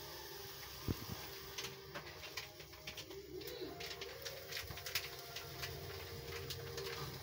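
A pigeon cooing once near the middle, over a steady background, with a scatter of small sharp ticks and crackles as a halved apple scorches in a gas-burner flame. There is a single dull thump about a second in.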